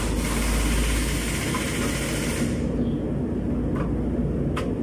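Steady low mechanical hum with a loud hiss that stops about two and a half seconds in, then two short sharp clicks near the end.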